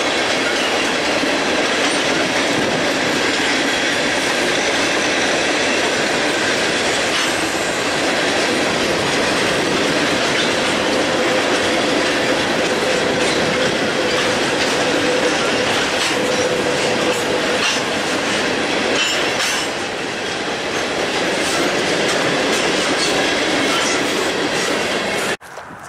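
Freight cars of a Canadian Pacific manifest train rolling past over a short trestle. The wheels click over the rail joints, and a thin wheel squeal holds for several seconds around the middle. The sound cuts off suddenly near the end.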